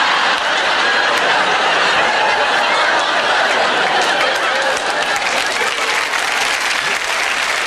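Studio audience laughing and applauding, a dense steady wall of clapping with laughter mixed in, the clapping standing out more toward the end.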